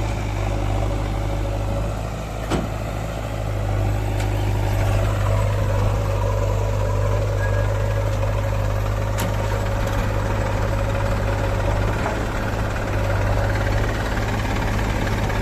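Heavy diesel engine of a backhoe loader or tractor running steadily, its note sliding down and settling about four to five seconds in. A single sharp knock comes about two and a half seconds in.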